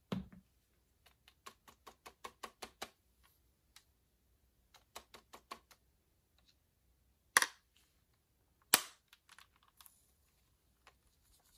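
Hard plastic clicking and tapping on a Bug-A-Salt salt gun's clear salt hopper: a soft thump, a run of light taps about four a second, a shorter second run, then two sharp plastic snaps about a second and a half apart as the hopper lid is shut.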